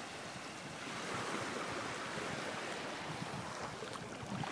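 Small waves of a calm sea washing in the shallows at the shore, with wind on the microphone.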